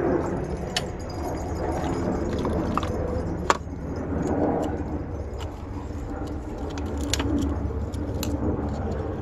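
Scattered light clicks and clinks of a fuel rail and its injectors being handled and pushed into place, the sharpest about three and a half seconds in, over a steady low background rumble.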